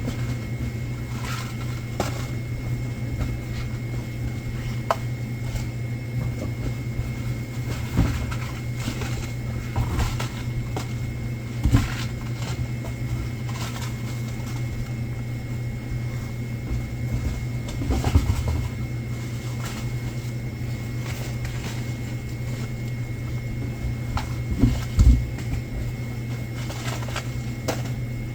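Goods and boxes being handled while convenience-store stock is sorted: scattered knocks and thumps, a double knock near the end the loudest, over a steady low hum with a faint high-pitched whine.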